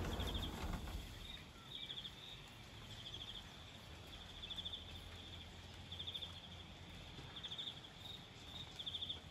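Forest insects chirping in short, high, pulsed trills, repeating roughly every second, over a faint low hum; a low rumble dies away in the first second.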